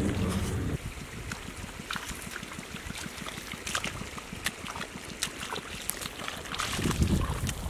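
Bare feet squelching and splashing through wet mud and shallow muddy water: a string of wet sucking steps and small splashes. A low rumble is heard at the very start and again near the end.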